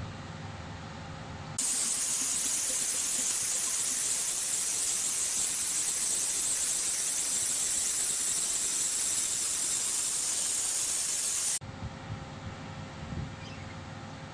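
Flow waterjet cutting machine's high-pressure jet cutting a metal part: a loud, high hiss that starts suddenly about one and a half seconds in, runs for about ten seconds and cuts off sharply. A low steady machine hum with a faint tone sounds before and after it.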